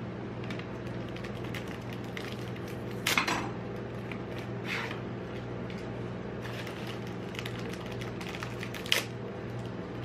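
Plastic biscuit wrappers crinkling and crackers being handled and set down on a steel ice-cream pan, heard as many small crackly clicks with a few louder sharp crackles and taps, about three seconds in and again near the end. A steady low hum runs underneath.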